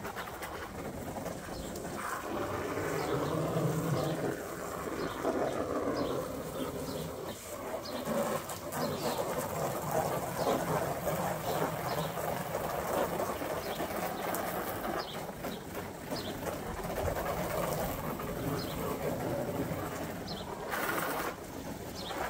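Steady rush of water in an inflatable hot tub, with small birds chirping over it.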